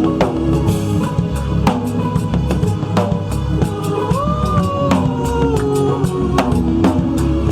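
Band music with a busy drum kit, bass drum and snare hits coming several times a second under sustained melody notes, one of which wavers up and down about four seconds in.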